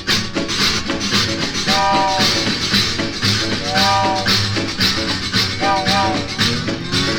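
Instrumental break of a 1950s country boogie record: a steel guitar plays three sliding chord phrases, about two seconds apart, over a steady shuffle rhythm with a rattling, train-like chug.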